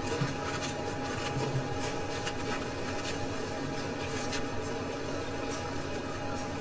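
A steady mechanical hum with a thin, even tone, under faint scattered clicks.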